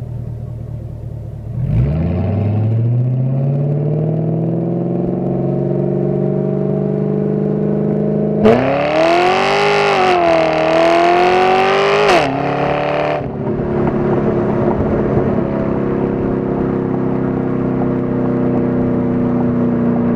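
Pontiac G8 GXP's LS3 V8 through a straight-piped exhaust, heard at the tailpipe while driving. About two seconds in the note rises as the car pulls away, then settles into a steady drone. About eight seconds in it goes to full throttle for about four seconds with a loud, rasping rising note, then lifts off back to a steady drone that sinks in pitch near the end.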